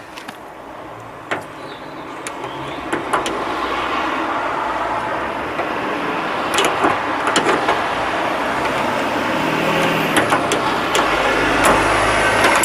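A passing motor vehicle's engine and tyre noise, swelling gradually over several seconds, with a few sharp clicks.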